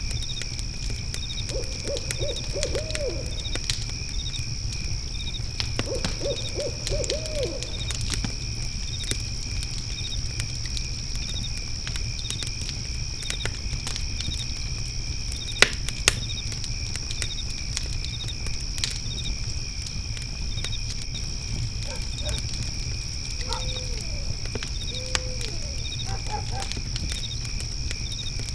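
Fire pit crackling with sharp pops over a low rumble, under a steady chorus of crickets chirping. An owl calls in quavering, wavering hoots about two seconds in and again around six seconds, with shorter hoots near the end.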